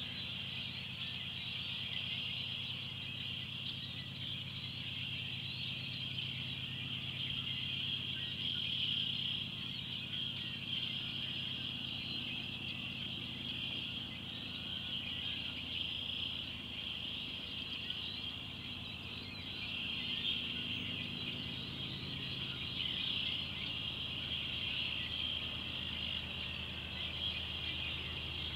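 A dense chorus of frogs calling, a steady high-pitched trilling, over a low steady hum.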